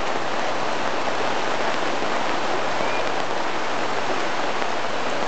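Heavy downpour: a dense, steady hiss of rain falling.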